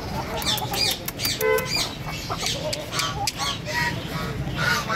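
Several caged birds calling at once: many short chirps and squawks throughout, with one louder honking squawk about a second and a half in, over a steady low hum.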